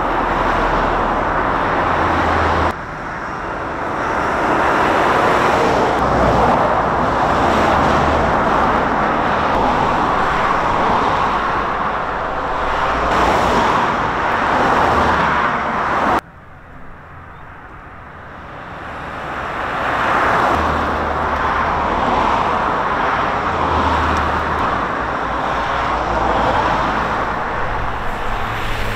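Road traffic: cars passing at speed on an open road, with tyre and engine noise swelling and fading as each vehicle goes by. The sound drops abruptly twice, about 3 and 16 seconds in.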